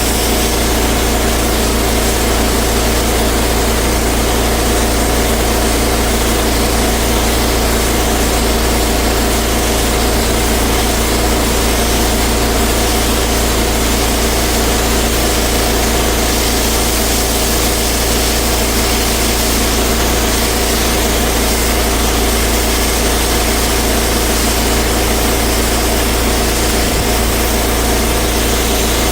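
Pressure washer engine running steadily at constant speed, with an even hiss of the high-pressure water spray over it.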